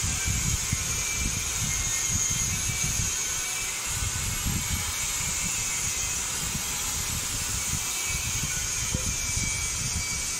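Steady background hiss with an uneven low rumble beneath it, unchanging throughout.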